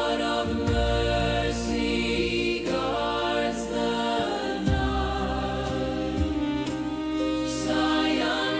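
Slow devotional music with sustained chords over a low bass, soft choir-like voices and gentle cymbal swells, between sung verses.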